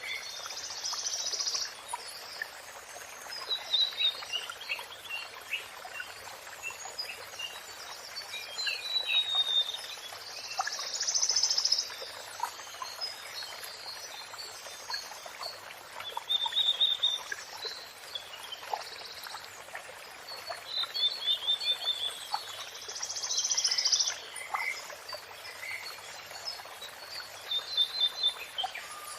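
Songbirds singing in short bursts of chirps and trills, a phrase every few seconds, over a steady hiss of running water.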